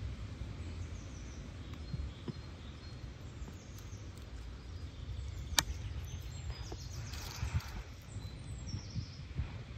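Woodland birds chirping faintly over a steady low rumble, with one sharp click about halfway through and a rustle of dry leaves as a dog walks across the leaf litter.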